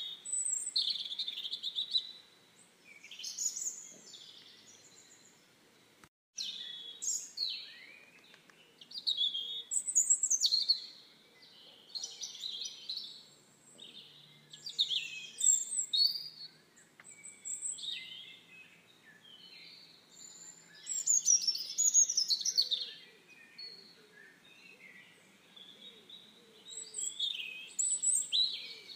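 Small songbirds singing and chirping in short, high, warbled phrases that follow each other every second or two, with several birds overlapping at times. The sound cuts out for a moment about six seconds in, then resumes.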